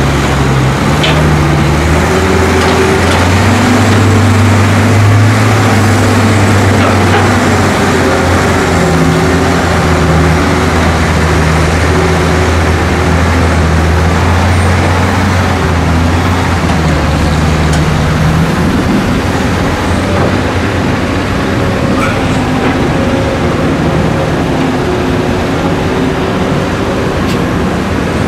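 Heavy diesel engines of Caterpillar crawler excavators and ten-wheel dump trucks running at an earthmoving job, the engine note stepping up and down in pitch as the excavators dig and swing loads of soil.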